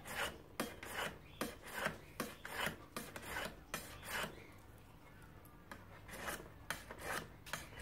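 Steel knife spine rasped back and forth on a sharpener in quick strokes, about two to three a second, with a short pause a little past the middle before the strokes resume. The spine is being squared to a 90-degree edge so it will strike a fire-starting rod.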